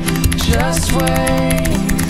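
Background music with a steady drum beat and a melody of held, gliding notes.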